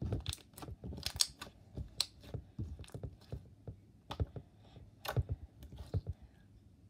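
Sticky brown slime being pressed, poked and stretched by hand on a tabletop, giving irregular sticky clicks and pops, several a second.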